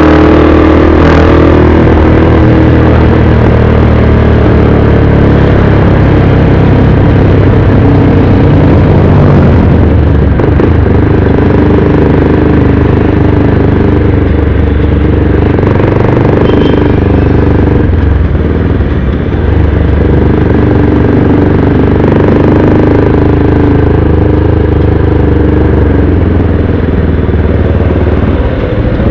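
Motorcycle engine running steadily while riding at city speed, heard from the rider's own bike, with small changes in engine note as the throttle varies.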